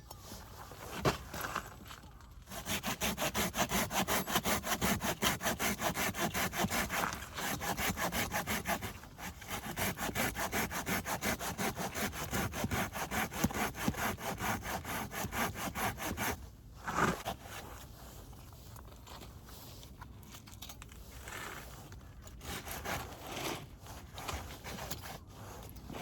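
Japanese pull saw cutting through a piece of firewood in fast, even strokes. The sawing pauses briefly about nine seconds in, goes quieter after about seventeen seconds, and picks up again near the end.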